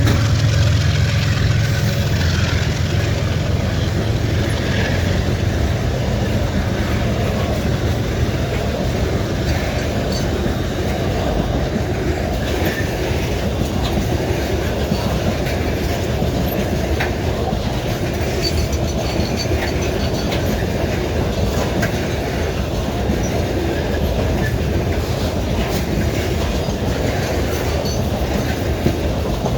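A train passing on the rails. A locomotive's low engine drone fades in the first few seconds, then a long string of cars rolls by with wheels clacking over the rail joints and an occasional faint wheel squeal.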